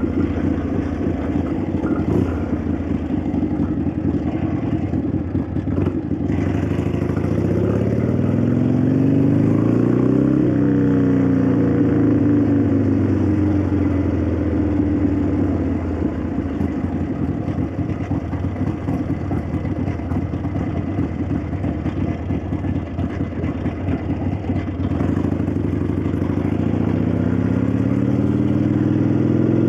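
1965 Harley-Davidson XLCH Sportster's air-cooled Ironhead V-twin running through a ride, with its clacking valvetrain. The engine speeds up about a fifth of the way in, eases off, runs steadily lower for a while, then speeds up again near the end.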